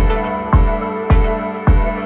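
Background music: sustained synth-like tones over a steady deep beat, a little under two beats a second.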